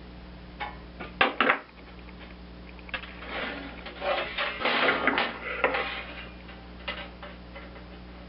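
Sheet metal and hand tools being handled on a workbench: two sharp knocks a little over a second in, then a few seconds of rattling and scraping, over a steady low hum.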